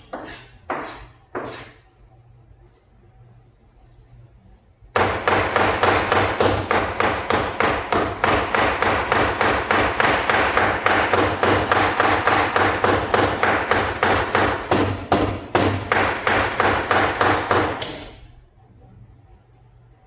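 Cleaver chopping chicken into keema (mince). A few single chops, then from about five seconds in a fast, steady run of chops, three or four a second, which stops a couple of seconds before the end.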